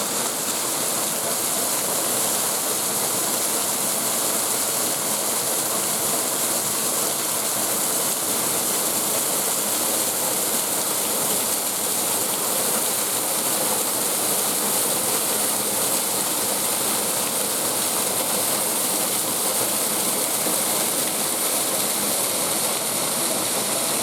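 Waterfall rushing steadily, a continuous even roar of falling water close by.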